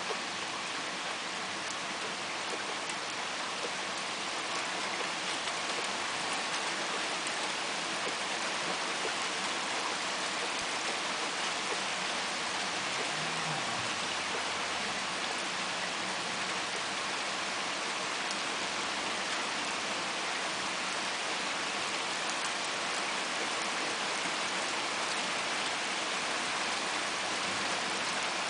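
Steady thunderstorm rain falling, an even hiss.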